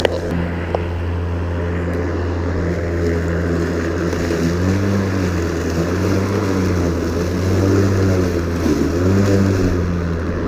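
Ryobi 40-volt cordless electric lawn mower running as it cuts grass into the grass catcher: a steady motor-and-blade hum whose pitch shifts up and down several times in the second half.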